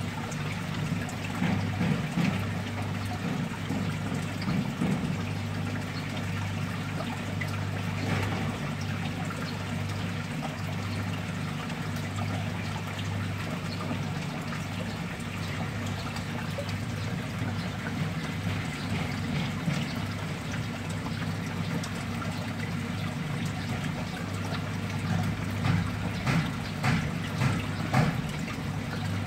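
Water trickling steadily in a mud crab fattening tank, over a steady low hum, with a few louder surges of water sound near the end.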